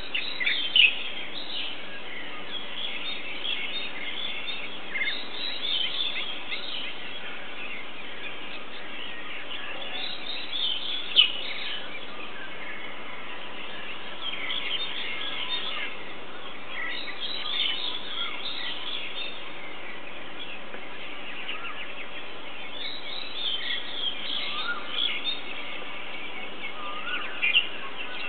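Dawn chorus: many birds chirping and trilling at once, over a steady background of noise, with a few louder calls standing out along the way.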